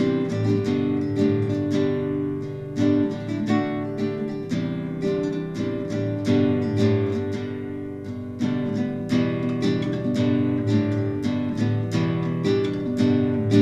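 Acoustic guitar music, picked and strummed, with a steady flow of notes several times a second.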